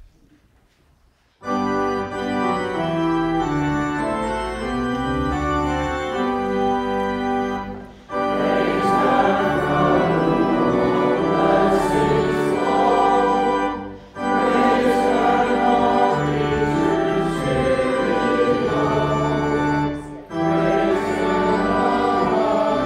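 Organ playing offertory music in sustained chords, starting about a second and a half in and going in phrases with short breaks about every six seconds.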